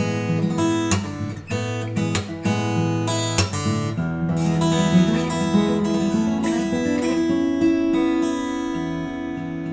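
Yamaha LL-16 all-solid acoustic guitar being played: quick strummed strokes for about four seconds, then picked notes and chords left to ring out.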